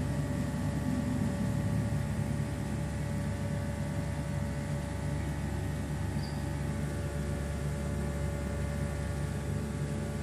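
Steady hum of a running star-delta-started electric pump motor, at an even pitch throughout: the pump is back in operation after a fault in its control panel was fixed.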